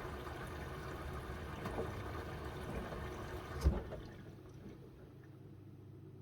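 Miele W1 washing machine taking in water, a steady rush of inflow. About three and a half seconds in there is a sharp knock and the rush stops, leaving the machine much quieter.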